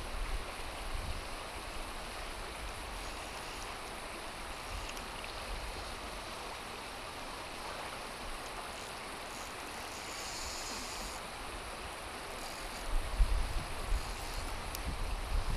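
Shallow river running over a stony bed: a steady rush of water. Near the end, wind buffets the microphone in uneven low gusts.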